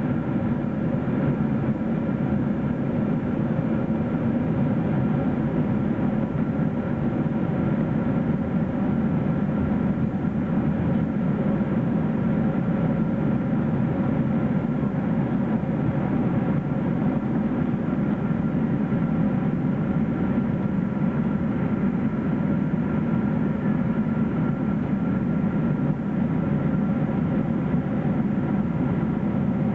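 Steady cabin noise of a Boeing 777-300ER in cruise: a constant low drone of its GE90 engines and airflow past the fuselage, heard inside the cabin, with faint steady tones above it.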